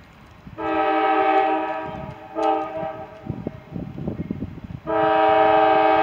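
CSX diesel locomotive's air horn blowing for a grade crossing: a long blast, a short blast, then another long blast starting near the end, each a steady chord of several tones. A low rumble runs between the blasts.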